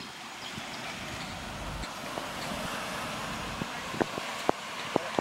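Road traffic: cars driving around a roundabout, a steady rush of engine and tyre noise. Several sharp clicks stand out near the end.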